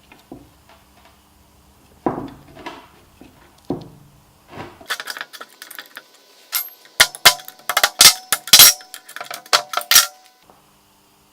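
Small steel parts of a lathe tailstock being handled and knocked together: a few dull knocks, then a quick run of sharp, ringing metal clinks in the second half.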